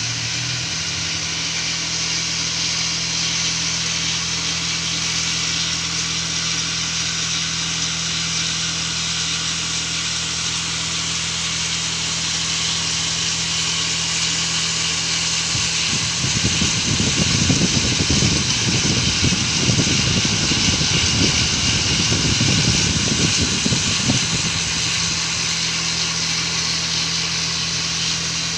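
Cotton candy machine's motor spinning its spinner head on a test run: a steady hum with a hiss above it, joined by a rougher, louder low rumble for several seconds past the middle.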